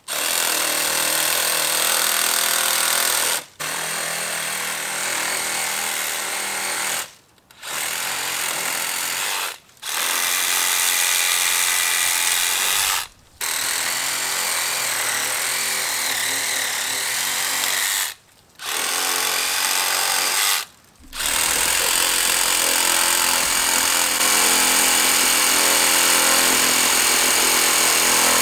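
Dewalt Atomic DCS369 20-volt compact reciprocating saw with its stock Dewalt blade cutting up tree branches. It runs in stretches of a few seconds with six brief stops between cuts, then runs on without a break from about two-thirds of the way in, sounding deeper.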